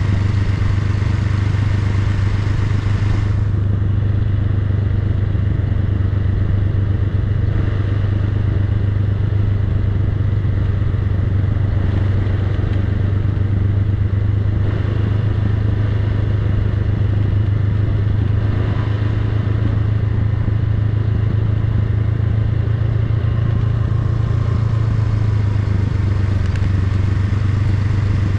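Honda Rebel 500's parallel-twin engine running steadily at a low, even pace as the motorcycle rolls slowly downhill.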